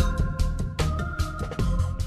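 Outro background music with a steady beat and held keyboard chords.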